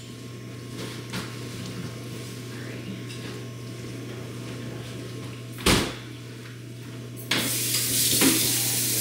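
Kitchen sink tap turned on about seven seconds in, water then running steadily into the sink. Before that there is a low steady hum with a few small clicks, and a single sharp knock a little past halfway.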